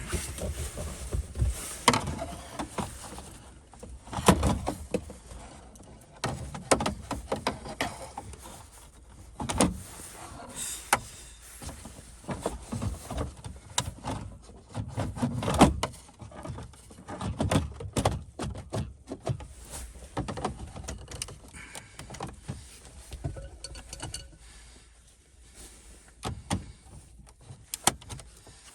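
Irregular clicks, knocks and taps of parts and tools being handled while a car radio is being fitted, with quieter rustling between them.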